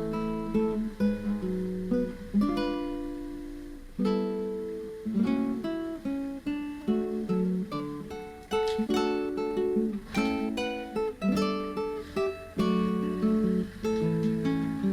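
Background music: acoustic guitar, plucked and strummed chords.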